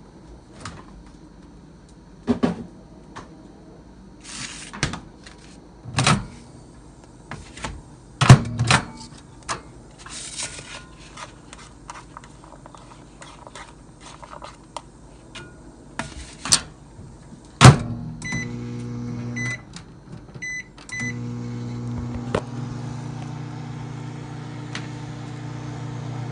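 Scattered knocks and taps of a plastic utensil mixing chicken and rice on a paper plate, then a loud knock. A few short keypad beeps follow, and a microwave oven hums steadily as it heats the food.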